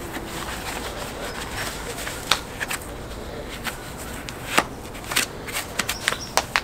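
Rubber-coated knit work gloves being pulled on: rustling with sharp snaps as the cuffs are tugged, and a quick run of snaps near the end as the gloved fingers are laced together and pushed down.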